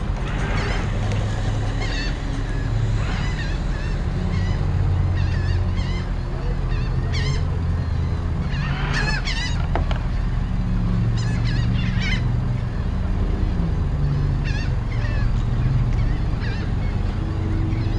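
Gulls calling again and again in short, wavering squawks over the low, steady hum of idling boat engines.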